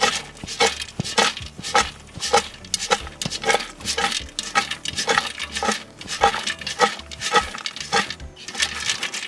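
A knife chopping vegetables in steady strokes, about two a second, each stroke a sharp knock with a brief ring.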